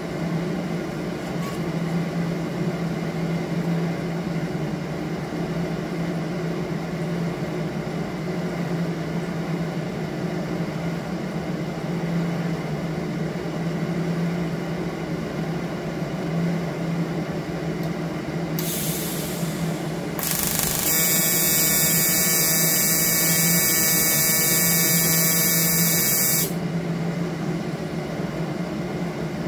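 Steady low hum of the welding setup throughout. About 21 seconds in, an AC TIG arc on aluminium sheet buzzes loudly and evenly for about five seconds, after a brief hiss a couple of seconds earlier.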